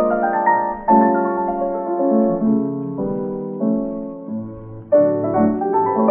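Piano playing a light melody in ringing chords, with new chords struck about a second in, three seconds in and near five seconds.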